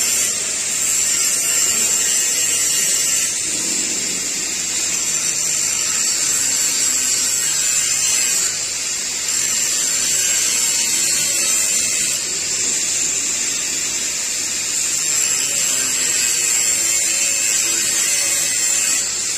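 Angle grinder running under load, its disc grinding a steel pipe with a steady high whine and grinding hiss. The level dips briefly twice, about eight and twelve seconds in, as the disc's contact with the metal changes.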